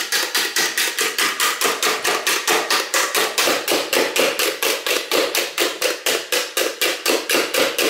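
Egg whites being beaten by hand with a spiral coil whisk in a bowl: a fast, even rhythm of taps, about six a second, as the whisk knocks against the bowl while the whites start to froth.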